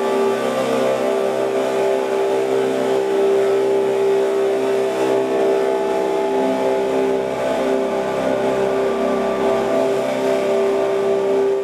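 Experimental electric guitar drone played through effects and looping gear: a dense, steady wall of several held tones with a hiss of noise above, sustained without a break.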